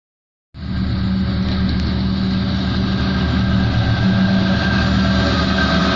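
EMD GT-22CW diesel-electric locomotive approaching with its diesel engine running loudly and steadily, along with the rumble of the train on the rails. The sound cuts in about half a second in.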